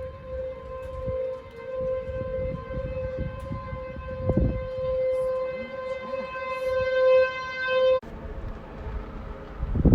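Outdoor tornado warning siren sounding a steady, held wail that slowly swells and fades in loudness, with wind rumbling on the microphone. The siren tone cuts off suddenly about eight seconds in, leaving only wind noise.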